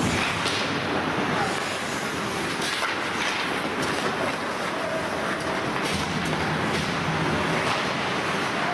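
Hockey game play in a rink: a steady rumble of noise with scattered sharp clacks.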